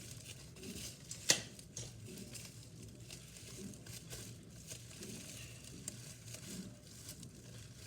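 Plastic packaging being handled and unwrapped, with soft crinkling and scattered faint crackles, and one sharp click a little over a second in.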